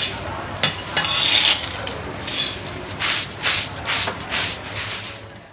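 Rubbing and scraping strokes from handmade candy being worked on a work surface: a few irregular strokes, then four even strokes about two a second, fading out near the end.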